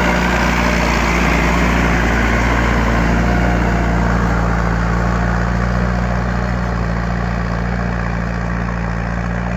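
Massey Ferguson 168 tractor's four-cylinder diesel engine running steadily under load while pulling a tine cultivator through the soil. It grows slightly fainter over the last few seconds as the tractor moves away.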